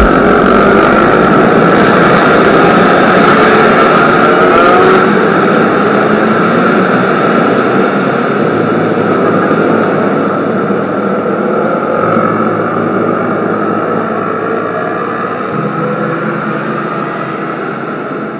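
Loud street traffic: vehicle engines running with a steady hum, slowly fading away.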